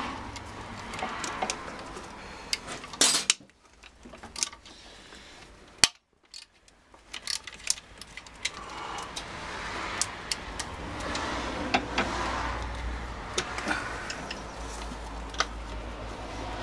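Scattered small metallic clicks, taps and rattles of a screwdriver and hands working on the terminals, wiring and relays of a BMW Airhead motorcycle's electrical system. The sound drops out briefly twice early on, and a low steady hum rises in the background from about halfway.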